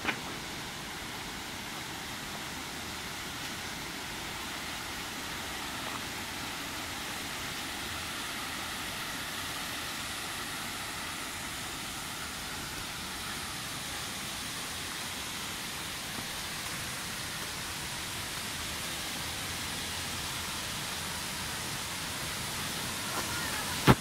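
Waterfall rushing in a steady, even hiss. A sharp click comes just before the end.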